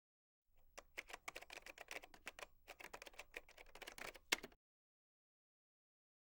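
A rapid, irregular run of sharp typing-like clicks. It starts about half a second in, has its loudest click near the end, and stops abruptly after about four seconds.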